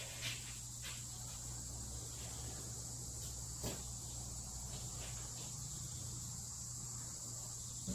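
A few small clicks and taps from hands fitting a custom LED tail light from underneath the car, the sharpest one about halfway through, over a steady high-pitched tone and a low hum in the background.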